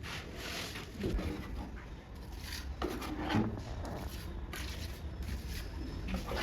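A steel plastering trowel scraping and spreading wet plaster over mesh on a wall joint, in a series of irregular strokes; the loudest comes a little over three seconds in.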